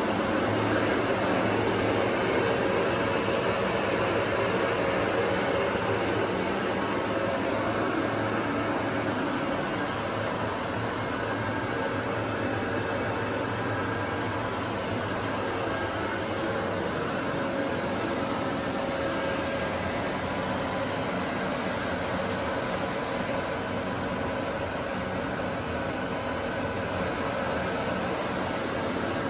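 Steady hum and hiss of running workshop machinery and fans, with a low hum that fades out about halfway through.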